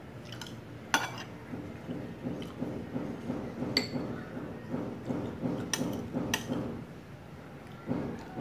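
A metal spoon clinks against a plate about four times as food is scooped up. Under it, close-miked chewing goes on in a steady rhythm of about two to three chews a second.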